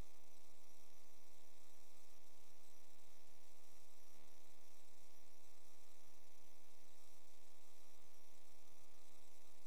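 Steady electrical hum with many evenly spaced overtones and a hiss above it, recorded by the sewer inspection camera system.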